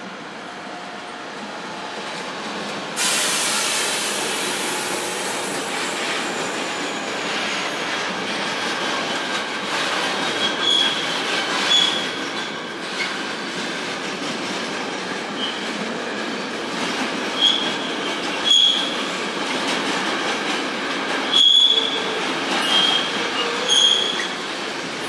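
Freight train of container wagons rolling past with a steady rumbling clatter, which jumps suddenly louder about three seconds in. From about ten seconds in, the wheels squeal again and again in short high-pitched bursts.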